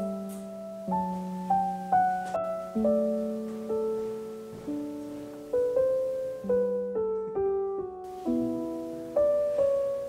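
Slow solo piano music: single notes and soft chords struck one after another, each left to ring and fade.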